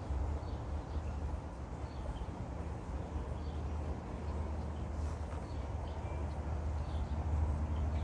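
Outdoor background sound: a steady low rumble with faint, scattered bird chirps.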